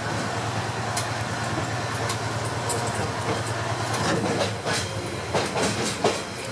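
Kishu Railway Kitetsu-1 diesel railcar running along the track: a steady low engine drone under rumbling running noise, with wheels clicking over rail joints, at first about once a second and then in a quicker run of clicks near the end.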